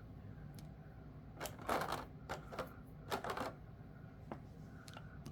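Small cat-figure game pieces clicking and clattering against each other as they are handled and put away, in a few short bursts.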